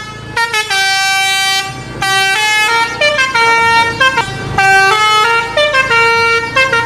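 Indonesian 'telolet' bus horn, a set of musical air horns, playing a tune of held and short notes.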